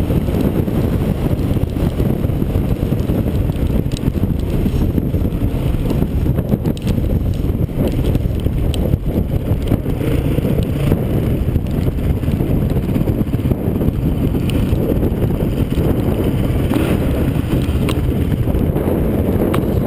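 Dirt bike riding along a sandy dirt track, heard from a camera mounted on the bike: a steady low rumble of engine and heavy wind buffeting on the microphone, with a few faint clicks.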